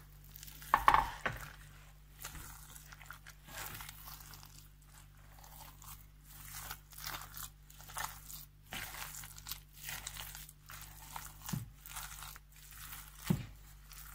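A hand squeezing and kneading a moist poppy-seed filling with bits of dried fruit in a stainless steel bowl: irregular wet, crackling squelches, with a sharp knock about a second in.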